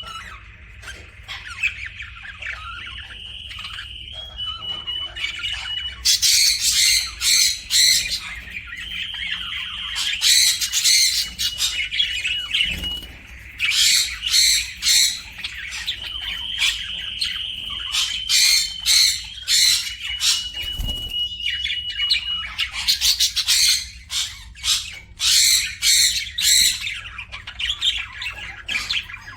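Pet parrots squawking in repeated bouts of loud, shrill screeches, with softer high chattering between the bouts.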